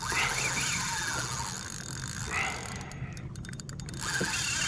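Baitcasting reel's drag slipping as a hooked fish pulls line off against it: a whine that rises and falls in pitch, then a quick run of clicks about three seconds in.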